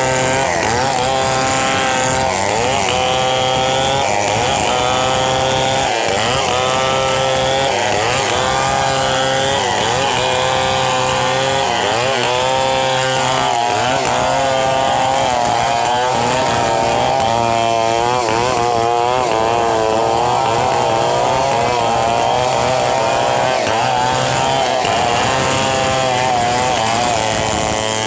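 Several large two-stroke chainsaws, among them a Stihl 070, running together under load while ripping logs lengthwise into planks. Their engine pitches overlap and waver up and down as the cuts bite and ease.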